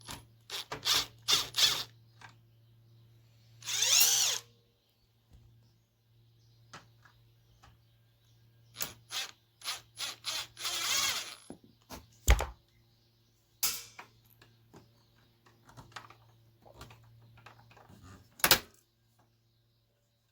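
Small Bosch drill running in two short whirring bursts, about four and eleven seconds in, driving screws out of an amplifier's chassis, between sharp clicks and clatter of screws and metal parts being handled.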